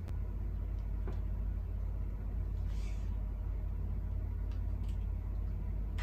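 Steady low hum, with faint rustles and clicks from a bouquet and ribbon being handled; a brief rustle about three seconds in.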